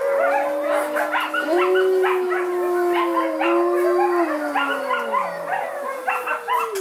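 A pack of wolves howling in chorus: several long, overlapping howls, one low howl sliding down in pitch about five seconds in, mixed with many short yips and yelps.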